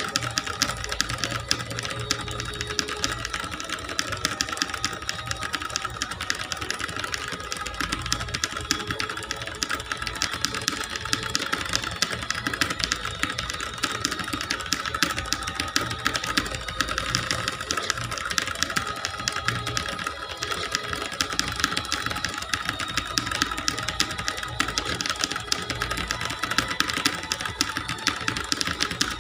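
Fast, continuous typing on a clicky computer keyboard: a dense, unbroken stream of key clicks, over a faint steady tone.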